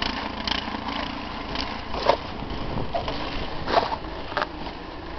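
An engine running steadily, with a few short sharp noises on top.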